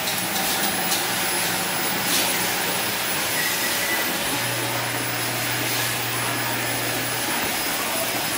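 Steady rushing noise in a kitchen during stovetop cooking, with a low hum that comes up for a few seconds midway and a few faint clicks about a second and two seconds in.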